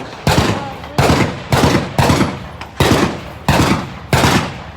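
Firearm being fired in a steady string of single shots, about seven of them roughly two-thirds of a second apart, each loud crack ringing out briefly before the next.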